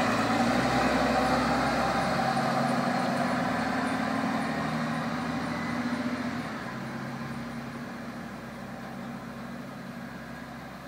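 Flatbed tow truck's engine pulling away and driving off, loud at first and fading steadily as it moves into the distance.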